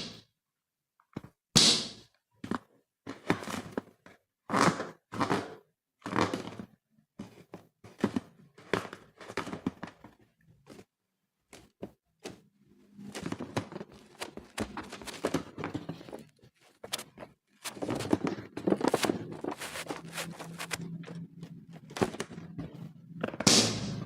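Slime being handled: a run of separate soft, wet squishes and dull thunks, then from about halfway a busier stretch of continuous squishing over a low steady hum.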